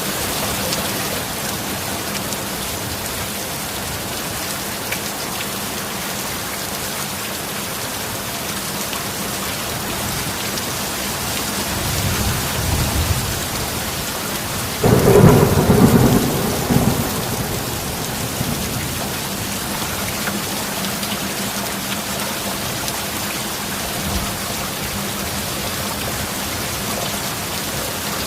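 Steady heavy rain, with thunder rumbling up about twelve seconds in and then a sudden loud clap about halfway through that rolls on for a couple of seconds before the rain is left alone again.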